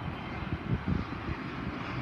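Business jet's twin turbofan engines on landing approach: a steady jet hiss and whine, over an uneven low rumble.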